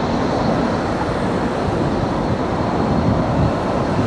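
Boeing 737-900ER's CFM56-7B turbofan engines running with a steady, deep rumble and a faint high whine as the airliner rolls away down the runway.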